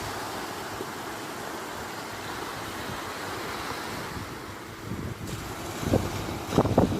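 Sea waves surging on the shore, a steady rushing noise. Near the end, gusts of wind buffet the microphone in a few loud rumbles.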